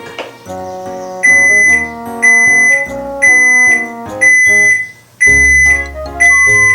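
Washing machine's end-of-cycle signal: six loud, steady high beeps of about half a second each, roughly one a second, marking that the wash has finished. Background music plays underneath.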